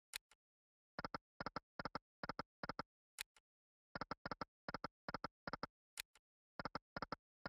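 Online slot machine game sound effects: quick runs of short clicking ticks as the reels spin and stop, three spins in a row, with a brief high blip starting each new spin.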